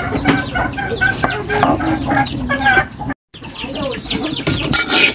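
Hens clucking repeatedly, with occasional knife knocks on a wooden chopping board. About three seconds in, the sound cuts off abruptly; then a metal spatula scrapes and stirs dried chillies in a dry metal wok, loudest near the end.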